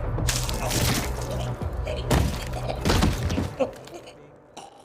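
Anime fight sound effects: a series of heavy hits and crashes over a low music drone, then the sound fades away.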